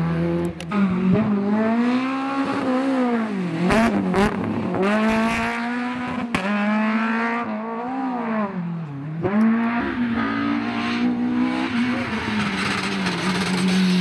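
Rally cars at full attack on a tarmac stage: engines revving hard and dropping again through gear changes and braking, over and over, with a few sharp cracks around the middle.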